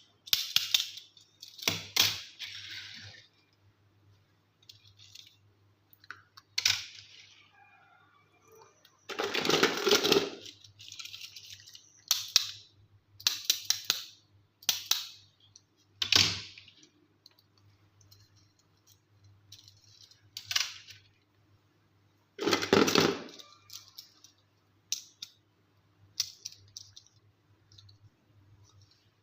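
Small plastic toys and their packaging being handled: scattered sharp clicks and taps and short crinkling rustles, with two longer, louder bursts about ten seconds in and again about twenty-three seconds in.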